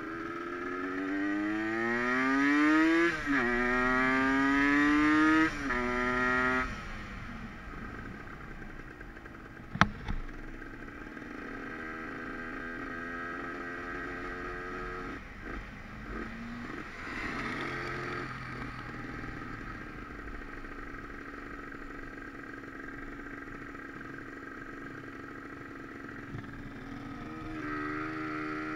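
Aprilia RS 125 two-stroke single-cylinder engine accelerating hard through two gear changes, its pitch climbing and dropping at each shift, then running steadily at lower revs. A single sharp knock about ten seconds in, and the engine picks up revs again near the end.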